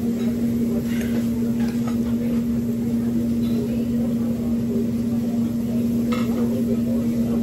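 A steady low-pitched hum with a few light clinks of cutlery on dishes and faint murmur of diners' chatter.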